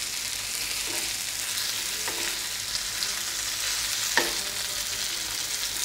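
Coated lady fish shallow-frying in coconut oil in a pan: a steady sizzle, with a spatula moving the pieces about and one sharp click of the spatula against the pan about four seconds in.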